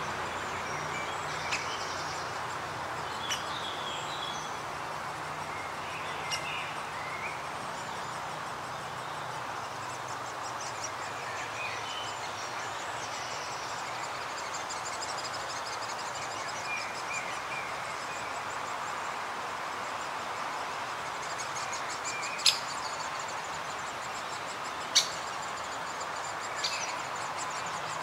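Steady hiss of background ambience with scattered small bird chirps throughout, broken by a few sharp, short clicks or calls, the two loudest about two and a half seconds apart near the end.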